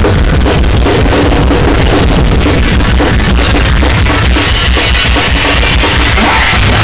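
Loud live noise-rock played by a drum kit and heavily distorted bass guitar, with rapid, dense drum hits over a constant wall of distortion.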